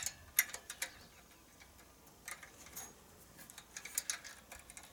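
Irregular small metallic clicks and ticks of fingers working a steel throttle cable into the engine's throttle lever and clamp bracket, the sharpest right at the start and a cluster around four seconds in.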